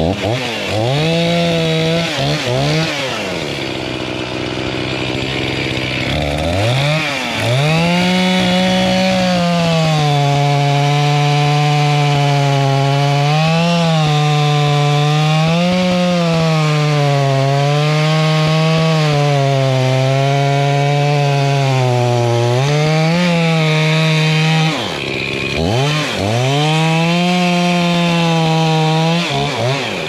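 Two-stroke gas chainsaw cutting through stacked sawmill slab cutoffs. It is revved a couple of times and idles briefly, then held at full throttle under load through a long cut, its pitch sagging and recovering as the chain bites. Near the end it drops to idle for a moment, runs up again for a shorter cut, and falls back.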